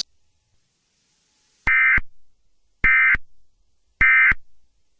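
Three short bursts of electronic data tones about a second apart: the Emergency Alert System's SAME end-of-message code, sent to close the warning.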